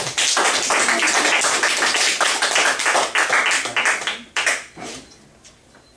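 A small group applauding: several seconds of dense hand-clapping that thins out and dies away near the end.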